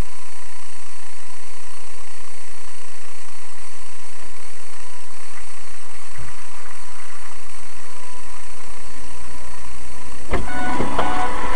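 Steady hiss with a few constant thin tones from a dashcam's cabin microphone while the car stands still. Music starts abruptly about ten seconds in.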